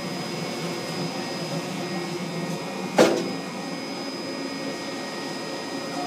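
Steady whooshing hum of the running gasification steam boiler setup, with a faint high whine held over it. One sharp knock about halfway through.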